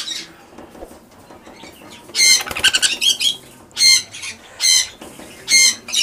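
Sun conures squawking during spoon-feeding: a run of harsh, high calls about two seconds in, then three shorter squawks spaced under a second apart.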